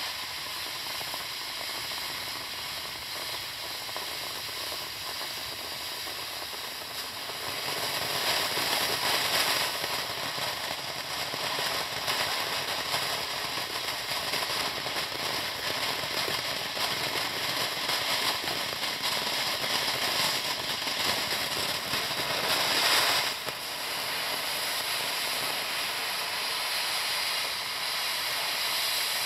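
Black Cat Tie Dye ground fountain firework spraying sparks: a steady hiss with crackling. It grows louder about a quarter of the way in, surges briefly about three-quarters of the way through, then settles back a little.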